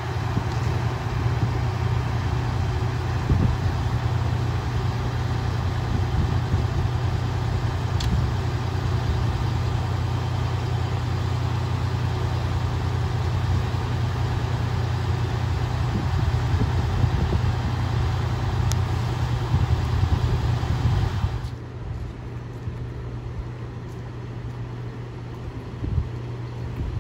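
Fire apparatus diesel engines running steadily, a loud low drone with a steady mechanical hum over it. About 21 seconds in the sound drops and thins to a quieter low rumble.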